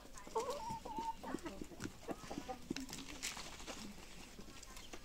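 Domestic hens clucking, with a few short wavering calls in the first second, followed by scattered light taps and rustles.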